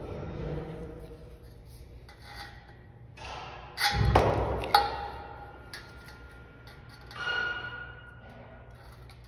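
Aviation tin snips cutting and handling a steel-faced foam-core trim strip: metal clicks and clanks, with the sheet steel ringing briefly. The loudest clatter comes about four seconds in and another near the end.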